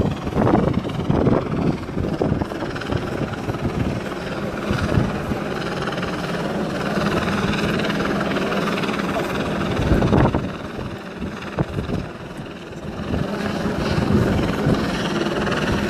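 Outdoor crowd commotion with wind buffeting the phone's microphone, scattered knocks and shuffles, and a faint steady low hum underneath.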